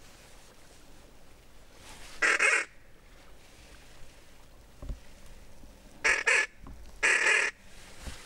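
Hunter's duck call blown to lure passing ducks: loud, short honking calls, one about two seconds in, then three more in quick succession from about six seconds, the last one longest.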